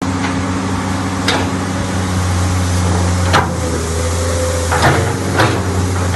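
Komatsu PC200 excavator's diesel engine running at a steady speed, with about five sharp knocks at irregular intervals over it.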